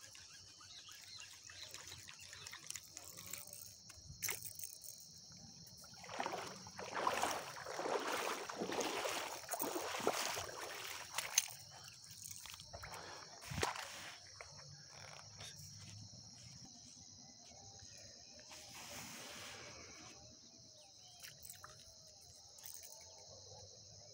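Steady high-pitched chirring of insects, with a stretch of louder rustling for several seconds in the middle and a few sharp clicks after it.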